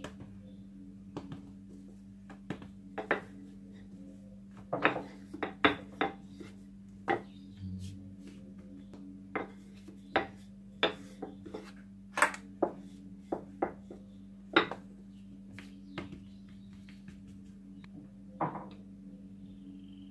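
Wooden rolling pin knocking and tapping irregularly on the worktop as a ball of brioche dough is rolled out flat, with a steady low hum underneath.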